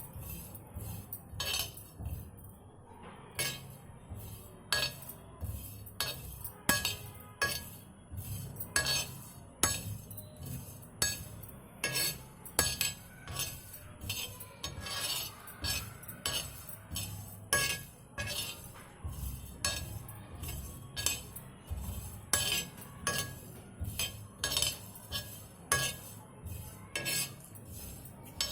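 Coriander seeds being stirred as they dry-roast in a pan, the stirring utensil clinking and scraping against the pan in irregular strokes, a little over one a second.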